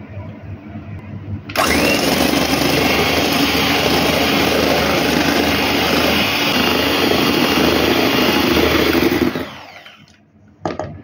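Electric hand mixer whipping cream in a stainless steel bowl. It switches on suddenly about a second and a half in and runs steadily at speed for about eight seconds. Near the end it is switched off and winds down, followed by a short knock.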